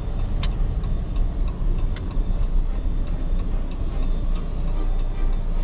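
Steady low rumble inside the cabin of a 2024 Jeep Meridian on the move, its 2.0-litre diesel engine running with road noise. Two sharp clicks come about half a second in and about two seconds in.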